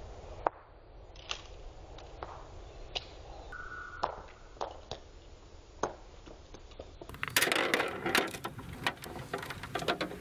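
Small plastic toys clicking on concrete, a sharp click every second or so, with a short tone about three and a half seconds in. About seven seconds in, a loud, dense clatter of plastic on concrete lasts for a few seconds.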